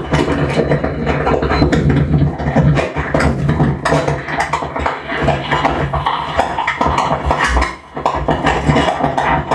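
Amplified mouth and vocal noises made into a handheld microphone and run through a small mixer: a dense, clicky stream of noise with a steady low hum beneath. It dips briefly near the end.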